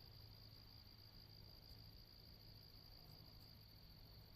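Near silence in the woods, with a faint, steady, high-pitched trill of crickets.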